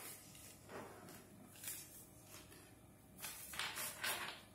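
A tarot deck being shuffled by hand: soft, brief rustling swishes of the cards sliding against each other, a few spaced apart and then a busier run of them about three seconds in.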